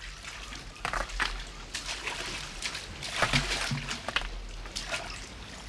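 Splashing in shallow sea water as boys wade and throw water at each other: a run of separate sharp splashes over the wash of small waves.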